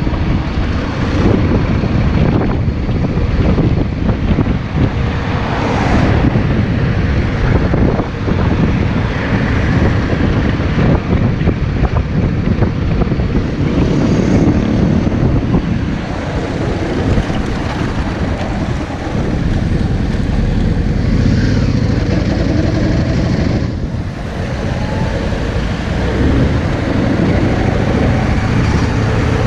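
Yamaha Drag Star 650's air-cooled V-twin engine running steadily, with wind noise on the microphone.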